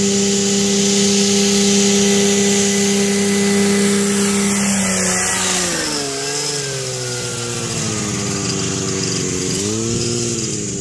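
Radio-controlled model aircraft engine running at a steady high buzz. Its pitch sags about halfway through, then swings up and down twice.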